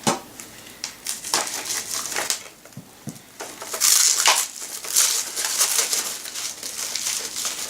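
Packaging of art supplies rustling and crinkling as it is handled and opened, in irregular scraping spells, loudest about four seconds in.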